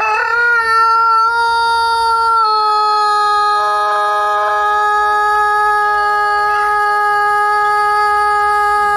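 A rooster crowing one very long, unbroken note, held steady at a high pitch and dipping slightly about two and a half seconds in.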